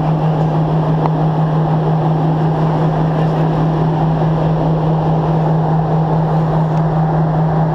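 Aircraft cabin noise in flight: a steady, loud drone of engines and airflow with one constant low hum.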